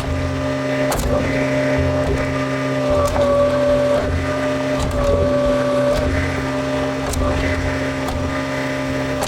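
John Deere 410 backhoe loader's diesel engine running steadily, with a rumble that rises and falls and a few faint clicks.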